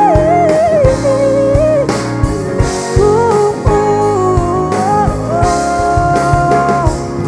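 Background music: a lead melody of long, bending notes over guitar and a steady drum beat.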